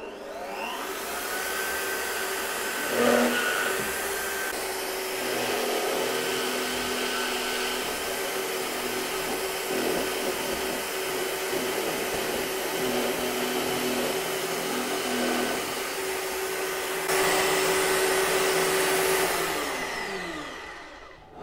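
Bosch benchtop drill press motor spinning up with a rising whine, then running steadily while a 15 mm Forstner bit bores shallow recesses in wood, the workpiece shifted side to side to widen each hole. It is loudest for a couple of seconds near the end, then the motor winds down with a falling whine.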